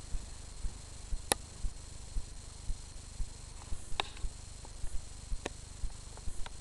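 GAZ engine in an ARO off-roader running with a knock: low thuds repeating evenly about twice a second, with a few sharp clicks on top.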